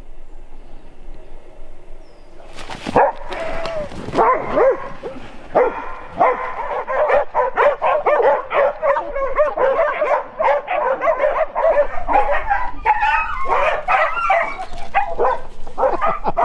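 Several herding dogs, Border Collies and Australian Shepherds, barking and yipping: a few separate barks at first, then overlapping barks almost without pause from about six seconds in.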